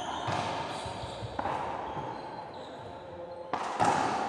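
Racquetball rally on an enclosed court: about four sharp, echoing cracks of the ball off racquets and walls, the loudest near the end.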